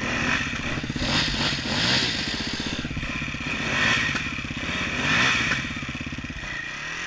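Off-road dirt bike engine idling close by with a steady beat, while another dirt bike revs in loud surges, about a second in and again around four and five seconds, as it climbs a steep dirt slope. The close idle fades out near the end.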